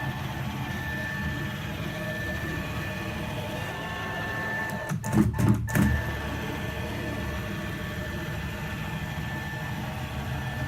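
Window-cleaning robot running on the glass, its motor giving a steady hum with a thin high whine. About five seconds in there is a brief cluster of louder bumps lasting under a second.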